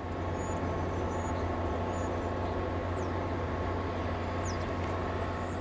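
MBTA Green Line light-rail train running across an elevated viaduct: a steady low rumble.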